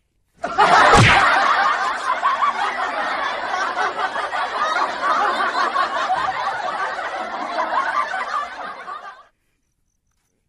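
Canned crowd laughter, many people laughing together, that starts suddenly with a thud and cuts off abruptly after about eight and a half seconds.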